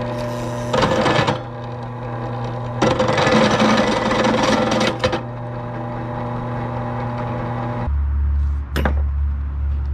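Benchtop drill press motor running with a steady hum while its twist bit cuts into steel angle iron, twice: briefly about a second in, then for about two seconds from about three seconds. Near the end the motor's hum drops to a lower drone, with a sharp click.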